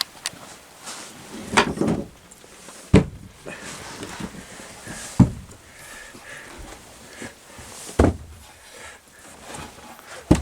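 Slow footsteps on an old wooden staircase: about five heavy thuds, a couple of seconds apart.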